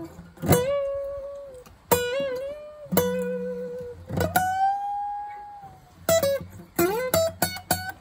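Seagull Entourage Mini Jumbo Rustic steel-string acoustic guitar playing a single-note lead solo with string bends and vibrato. A few sustained notes bend and waver, one held for over a second about four seconds in, then a quicker run of plucked notes near the end.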